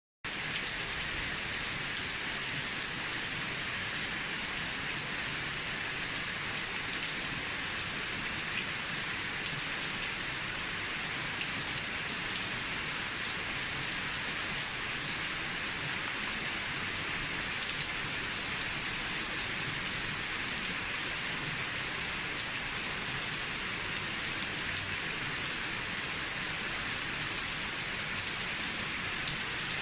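Steady rain falling on an old mossy rooftop: an even hiss of rain with many small, sharp drop ticks scattered through it.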